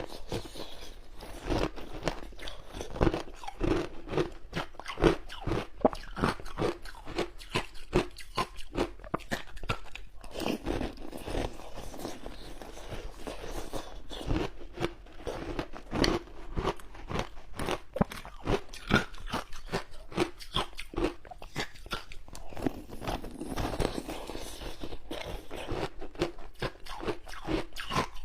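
Close-up crunching and chewing of frozen shaved ice, a dense run of sharp, irregular crunches, several a second.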